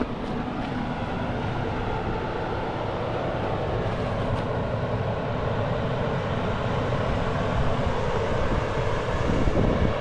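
Off-road 4x4 driving on a rough dirt trail: engine running with steady tyre and trail noise, getting somewhat louder toward the end.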